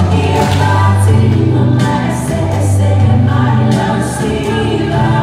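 Gospel song: several voices singing together over a bass line and light percussion.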